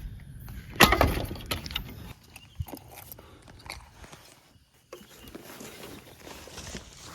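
A sharp woody crack about a second in, then scattered snapping, clicking and rustling, like footsteps and twigs on a forest or field path.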